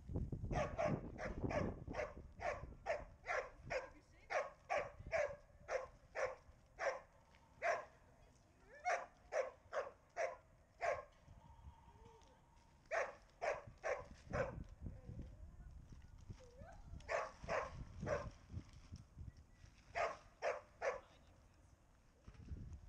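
A dog barking repeatedly in quick, fairly high-pitched runs of about two to three barks a second, broken by short pauses, with wind rumbling on the microphone at times.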